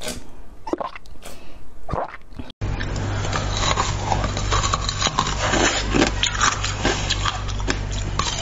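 Close-miked biting and crunching of moulded coloured ice, with sharp separate cracks at first. After a brief dropout a couple of seconds in, it becomes a denser, continuous crackling chew over a steady low hum.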